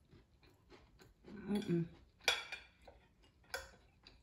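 Cutlery clinking against a dish: a sharp clink about two seconds in and another about a second later. Just before the first clink comes a short, low hum from a voice.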